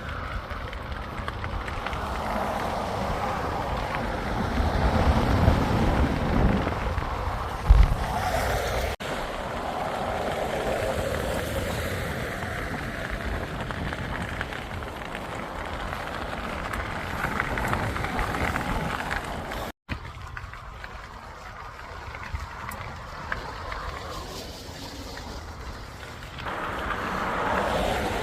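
Wind rushing over the microphone, with road and traffic noise.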